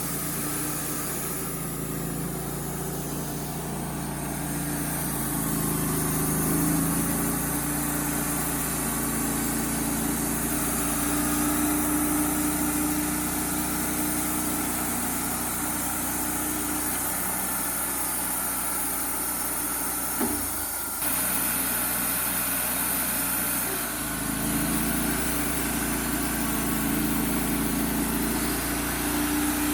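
An engine running steadily, its pitch shifting up and down several times as it takes and sheds load, with a brief interruption about twenty seconds in.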